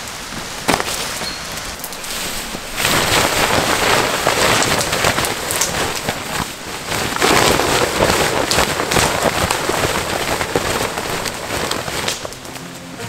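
A wet tarp being taken down and shaken out: a loud rustle and flapping of the fabric with water spattering off it, starting suddenly about three seconds in and dying down near the end. One sharp knock a little earlier.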